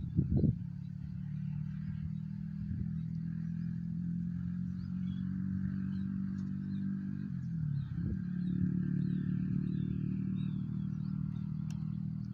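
A steady low engine hum with a dip in pitch about seven seconds in. Two or three short knocks come right at the start.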